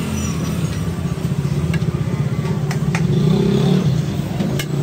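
A steady low rumble, with a few sharp metal clicks of cooking utensils at the flat iron griddle.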